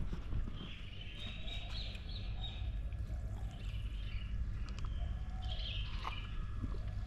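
Birds chirping in several short spells, over a steady low rumble of wind on the microphone.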